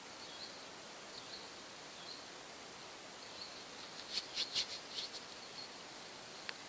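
Steady background hiss with faint, short, high chirps of small birds scattered through, and a quick cluster of sharper clicks and chirps about four seconds in.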